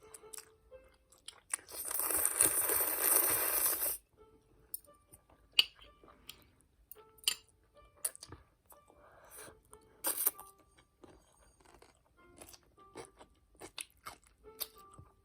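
Close-up chewing and crunching of cold spicy noodles with crisp cucumber, in scattered short crunches and clicks. About two seconds in, a loud burst of noise lasts about two seconds.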